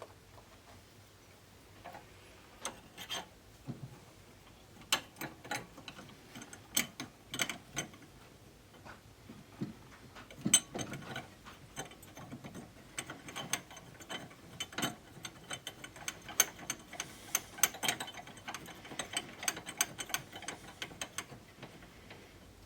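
Irregular sharp clicks and clacks of hand tools and small metal parts being handled and fitted, growing into a denser run of quick clicks in the second half.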